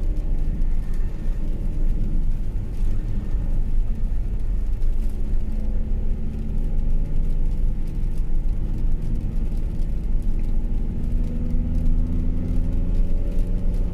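A rear-wheel-drive van's engine and road rumble while driving, steady, with the engine note rising gently near the end as it speeds up.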